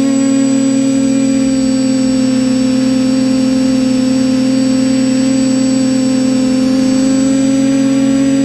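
TBS Discovery Pro quadcopter's electric motors and propellers humming steadily in flight, picked up by the camera mounted on the quad: one unchanging pitch with its overtones.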